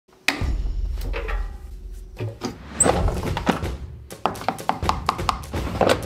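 Background music over irregular clicks and knocks from a Miele front-loading washing machine's porthole door and detergent drawer being handled.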